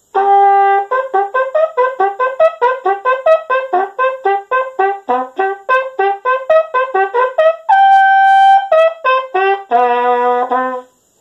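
Bugle played as a lip warm-up: quick runs of short notes leaping back and forth among a few pitches, a long held high note about eight seconds in, then a held low note near the end.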